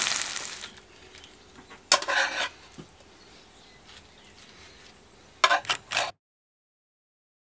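Grey oyster mushrooms and vegetables sizzling loudly in a hot frying pan, fading out within the first second. Then a metal spatula clinks and scrapes against the frying pan as the food is served onto plates, once about two seconds in and again near the end.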